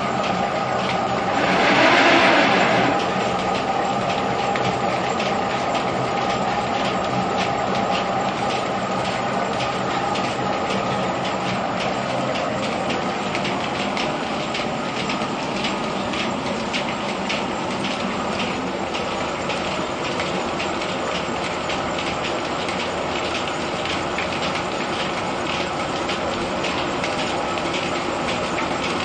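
Threshing machine in a grain mill running with a steady, rapid mechanical rattle. About two seconds in, a louder rushing pour is heard as a load is tipped into the machine.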